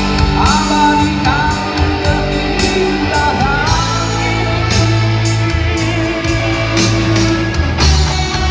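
Live rock band playing: electric guitar over bass and drums, with a lead line bending in pitch in the first few seconds.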